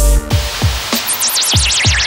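Electronic background music with a steady kick-drum beat; a wavering high synth tone comes in about a second in.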